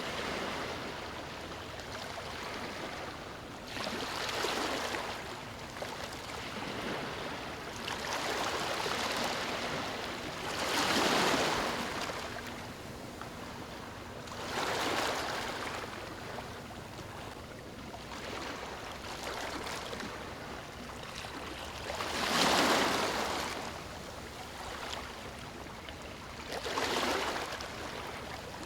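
Sea waves breaking on a sandy beach, a steady hiss of surf that swells as each wave crashes and washes up the shore, roughly every four seconds, with the biggest breaks about eleven and twenty-two seconds in.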